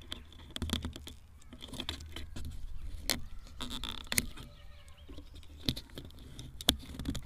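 Close handling noise on a quadcopter's front-mounted action camera: hands working on the drone and its straps make irregular clicks, taps and rustles.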